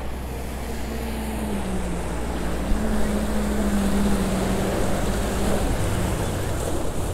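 Rushing floodwater with a small engine running over it, the engine's pitch holding steady and wavering slightly.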